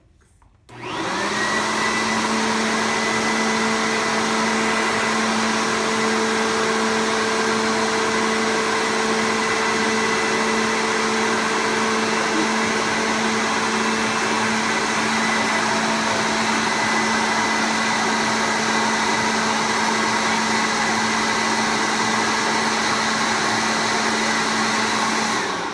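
Corded electric leaf blower switching on about a second in and running steadily with a constant whine and rush of air, then winding down at the end.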